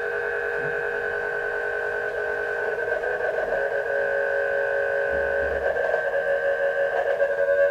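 Several pure sine tones generated by GeoGebra from a sum of sine functions, sounding together as a steady electronic chord; because more than one function is summed, the sound is disturbed rather than a single clean tone. About halfway through some of the tones change pitch, and near the end it gets a little louder with a pulsing waver.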